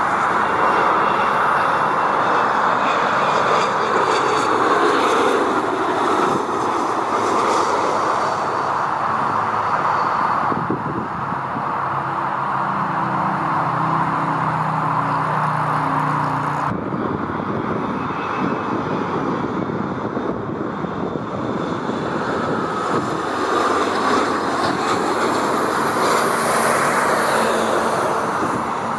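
Jet airliner engines: a loud, steady rushing noise with thin high whines sliding down in pitch. The sound changes abruptly twice, about a third of the way in and just past halfway, with a few steady low tones in the stretch between.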